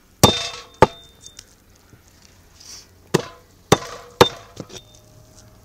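Heavy cleaver chopping a whole fish on a wooden log block. There are two sharp chops about half a second apart, then after a pause three or four more about half a second apart. Some chops are followed by a brief metallic ring from the blade.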